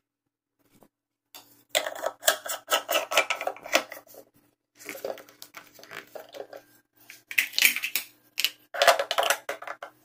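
Hard plastic and metal parts of a small espresso machine being handled, rattling and clattering in four irregular runs of quick knocks, the loudest near the end.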